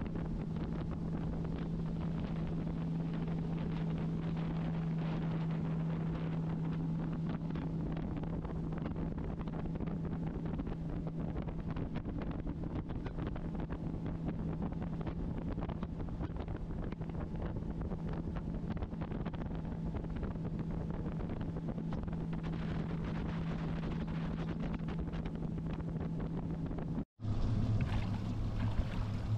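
Boat engine running steadily at cruising speed, a constant hum at one pitch, with wind buffeting the microphone and water rushing along the hull. Near the end the sound cuts out for a moment and gives way to a lower steady hum.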